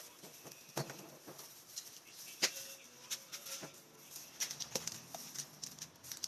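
Faint handling noise: scattered, irregular clicks, taps and light rustles as materials are moved about on the spray-painting work surface, a little busier near the end.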